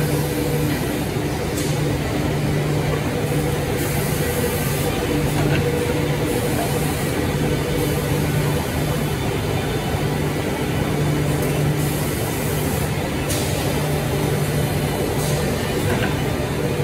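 Two-spindle CNC wood lathe with automatic blank feeding running and turning wooden blanks: a steady machine hum, with a higher hiss that comes and goes every few seconds.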